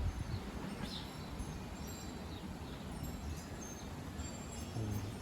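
Strong wind rumbling and gusting on the microphone, with faint bird chirps above it.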